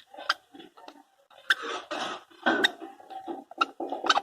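Budgerigar making short raspy chattering calls, broken by several sharp clicks.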